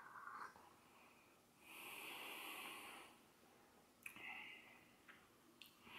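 A man's faint sip from a shot of espresso, then breaths out through the nose as he tastes it: a longer breath about two seconds in and a shorter one about four seconds in that starts with a small click.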